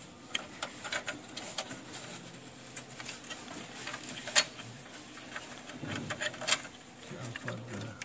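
Scattered light clicks and taps of sheet-metal chassis parts and cables being handled, with one sharper click about four seconds in.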